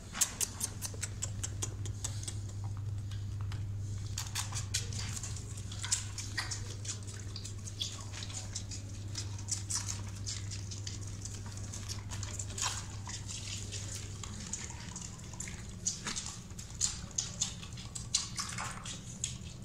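Chinkara fawn suckling milk from a feeding bottle: a rapid run of small wet sucking and smacking clicks, over a steady low hum.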